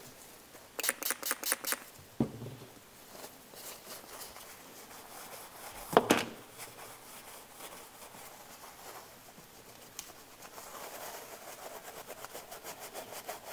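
Paper towel rubbing and scrubbing on a boiler damper housing in quick strokes: a short run of about six strokes about a second in, and a faster run near the end, wiping off creosote. There is one sharp knock about six seconds in as the part is handled.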